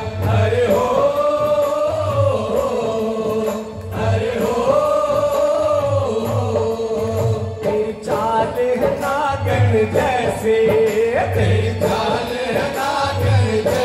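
Live Rajasthani Holi folk music played through loudspeakers: men singing long, wavering held notes over a steady beat of chang frame drums.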